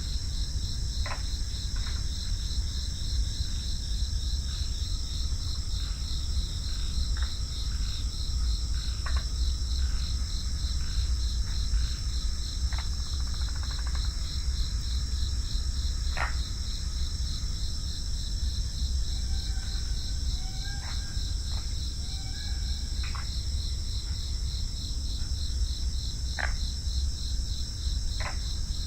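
A chorus of crickets chirping in a steady, fast-pulsing trill over a low steady rumble, with scattered short chirps from other creatures now and then.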